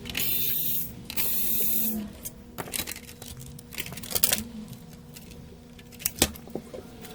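Two short hissing blasts from a spray can, each under a second, followed by scattered light clicks and taps.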